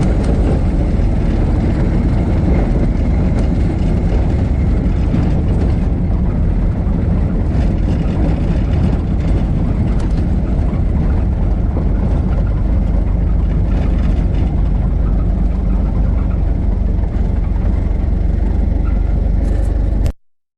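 1926 Ford Model T's four-cylinder flathead engine running while the car is driven, a steady low rumble. It cuts off suddenly near the end.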